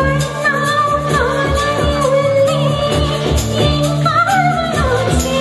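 Live band playing a Tamil film song: a female voice sings a gliding, ornamented melody over keyboards, electric bass and a steady drum beat.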